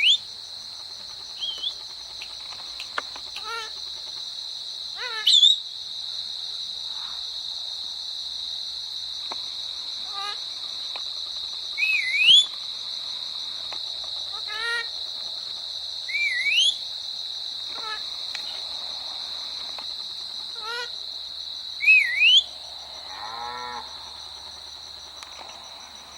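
Indian ringneck parrot giving short whistled calls that dip and then sweep upward, repeated every few seconds, with a lower warbling call near the end. A steady high-pitched hum runs underneath.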